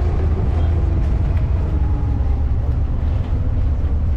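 Wooden abra water taxi's inboard diesel engine idling at the pier, a steady low rumble.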